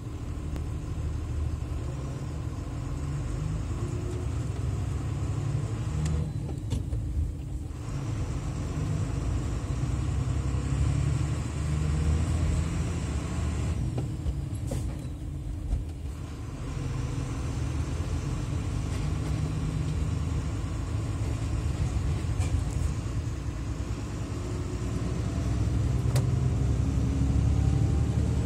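Heavy truck's diesel engine heard from inside the cab while driving, a low rumble that climbs in pitch as it accelerates through the gears. It eases off briefly twice, about six and fourteen seconds in, for gear changes, and grows louder near the end.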